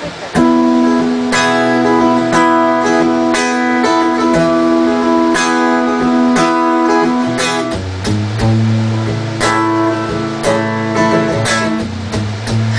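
Acoustic guitar strumming sustained chords as a song's instrumental intro, with a chord change about eight seconds in.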